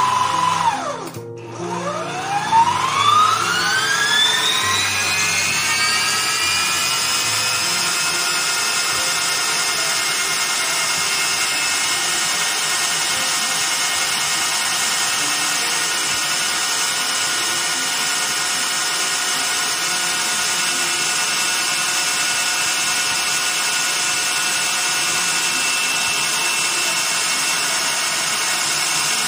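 Electric stand mixer beating eggs and sugar in a stainless steel bowl. About a second in the motor briefly drops, then spins back up with a rising whine over a few seconds and runs at a steady high speed.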